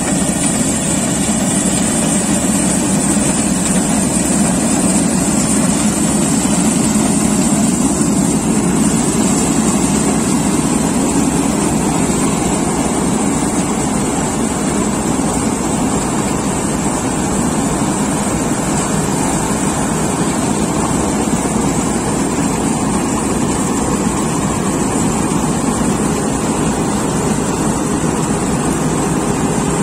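Preet tracked combine harvester running steadily while cutting and threshing soybeans: an even, unbroken engine and machinery noise.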